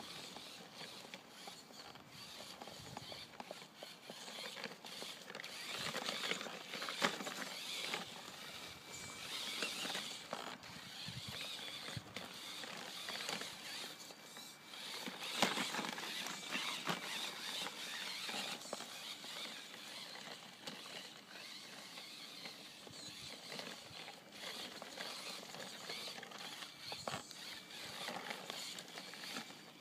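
Homemade 1:10 scale RC rock crawler crawling through snow, its drivetrain whirring and clicking in uneven spells that swell and fade.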